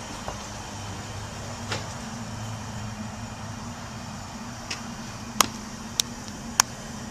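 Steady low hum with a few sharp clicks or taps, the three loudest coming about half a second apart near the end.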